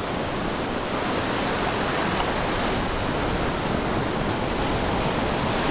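Shallow Gulf surf washing and breaking around the legs of someone wading, a steady rushing noise of foam and water.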